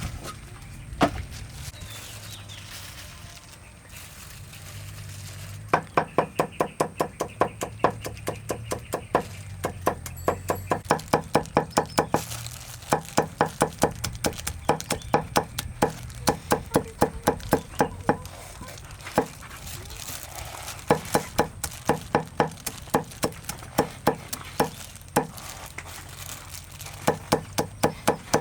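Knife chopping food on a wooden cutting board: quick, even strokes about three a second, in runs with short pauses, starting a few seconds in.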